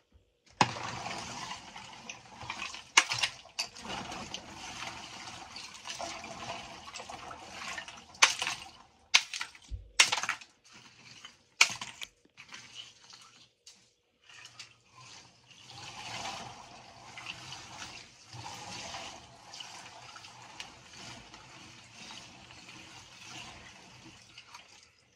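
Ice water sloshing in a chest freezer as it is stirred, with loose ice chunks knocking together and several sharp knocks.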